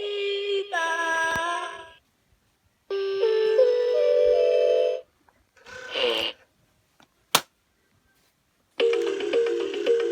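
Electronic toy playing short beeping jingles, one after another with silent gaps, with a quick falling sound effect in the middle and a single sharp click before the last tune starts.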